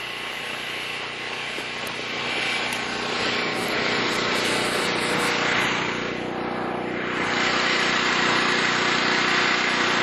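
A small engine running steadily under a hiss, slowly getting louder.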